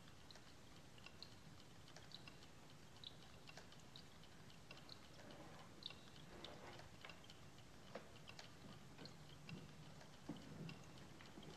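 Near silence: a faint low hum with scattered light ticks and clicks, a little busier near the end.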